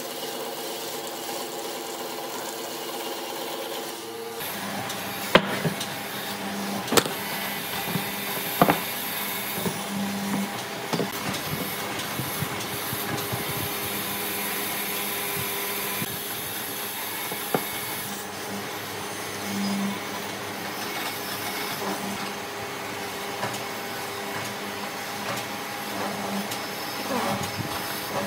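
Woodworking machinery running steadily, its motor hum changing abruptly about four seconds in. After that, sharp knocks and scraping from wood being worked come at irregular intervals over the running machine.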